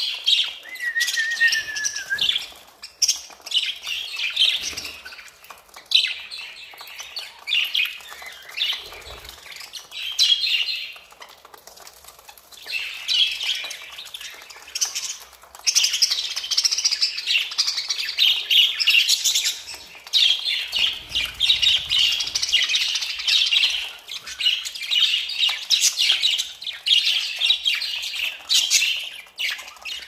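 A flock of budgerigars chirping and chattering, growing busier and louder about halfway through.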